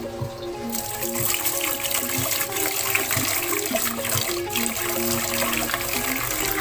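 Tap water running into a metal pot of rice, starting about a second in, as a hand swirls the grains to wash them. Background music with a plain melody plays under it.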